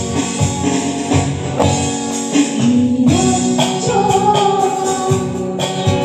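Live band music: a woman singing a held, gliding melody over tabla, electric bass guitar and keyboards.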